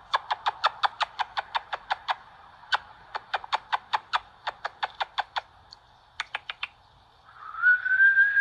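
An animal calling in a rapid run of short, sharp calls, about six a second, breaking off twice, with a last quick burst of four calls. Near the end a steady whistled tone begins and holds.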